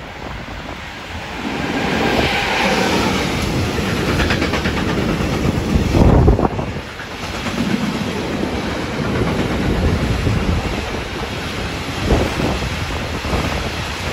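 Freight train of tank wagons passing close behind an electric locomotive: the rumble builds as it arrives, then the wagon wheels clatter rhythmically over the rail joints, loudest about six seconds in.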